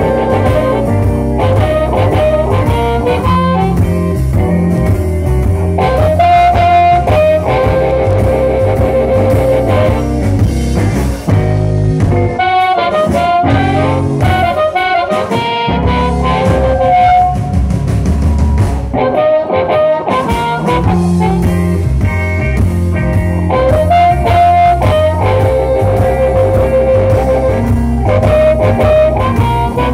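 Live blues band playing an instrumental passage: amplified harmonica, cupped against a microphone, carries the melody with held, bending notes over electric guitar, electric bass and drum kit.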